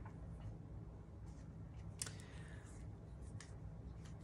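Faint clicks of a plastic liquid eyeliner pen being handled, with one sharper click about two seconds in, over a low steady hum.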